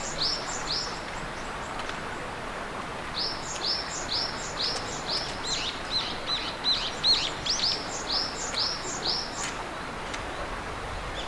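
Songbird chirping in rapid runs of short, high, rising chirps, about three a second, with a brief pause about a second in; a steady hiss of outdoor ambience lies beneath.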